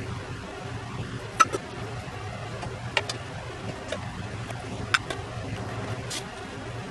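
Small metal pick clicking and scraping against the edge of an antique bellows as dry, rotted leather and old tacks are pried off: a handful of sharp clicks, some in quick pairs, and a brief scrape near the end, over a steady low hum.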